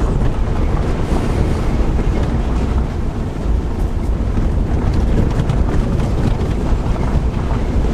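Steady low rumble of wind buffeting the microphone, mixed with road noise from a moving vehicle.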